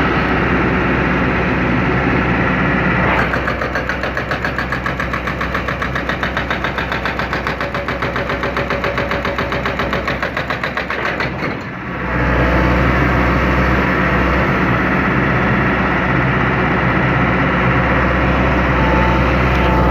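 John Deere 160C excavator's diesel engine running. For several seconds near the start a fast, even pulsing of about four beats a second rides over it. After a brief dip about 12 seconds in, the engine runs on steadily and somewhat louder.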